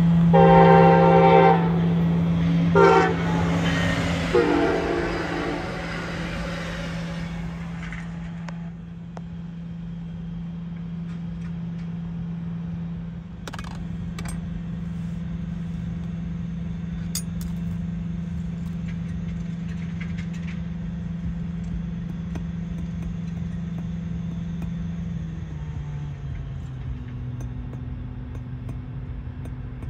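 Passenger train horn sounding several blasts: one held through the first second or so, a short one about three seconds in and another around four and a half seconds, dying away by about eight seconds. After that a steady low hum carries on, dropping in pitch near the end.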